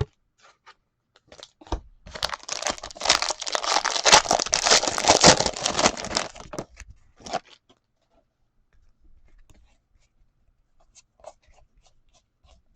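A sports card pack's wrapper being torn open and crinkled in the hands for about four and a half seconds, then faint soft ticks of cards being handled.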